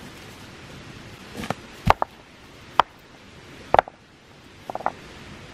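Stones knocking against each other as they are set in place by hand: about six sharp, irregular clacks.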